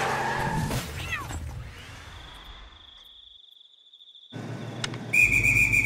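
A whoosh fading away over the first second, then a thin, steady high tone over near silence. Near the end a louder high, slightly falling tone comes in suddenly over a low rumble.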